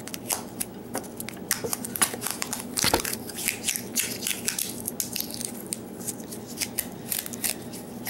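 Tape being peeled and unwound from a taped-up key, a run of irregular crackles and sharp ticks as the adhesive pulls free.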